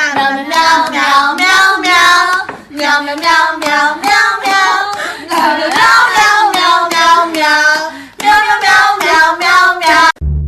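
A high voice singing in short, rhythmic syllables, breaking off sharply near the end.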